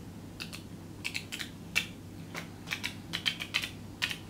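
Thin 3M reflector film being peeled off the backlight layer of a Xiaomi Mi 5 display, crackling in an irregular run of sharp clicks that grows busier after the first second.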